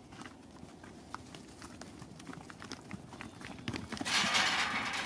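Footsteps on the ground: a string of light, irregular knocks, with a louder burst of hissing noise about four seconds in that lasts about a second.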